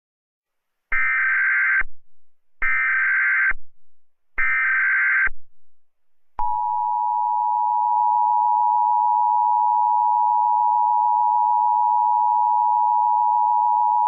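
Emergency Alert System tones: three one-second bursts of SAME header data, a harsh buzzing warble, about a second apart, followed about six seconds in by the steady two-tone EAS attention signal that marks the start of an emergency alert.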